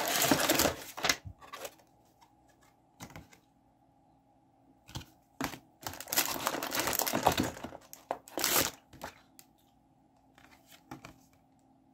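Paper and packaging being handled while a fishing-lure subscription box is unpacked: rustling and crinkling in several irregular bursts with quiet gaps between, the longest about six to seven and a half seconds in.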